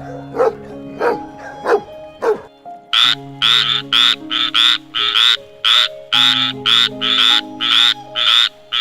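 A frog croaking in a fast, regular series of loud calls, about two to three a second, over background music. A few short, sharp calls come before the croaking begins, in the first two seconds or so.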